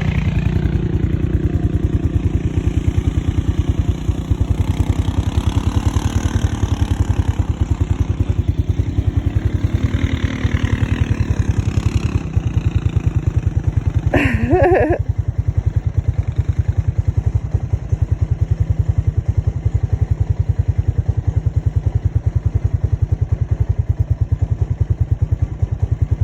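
A Honda off-road machine's engine idling close by with an even, steady beat. Other engines rev faintly in the distance during the first half, and one quick rising-and-falling rev comes about halfway through.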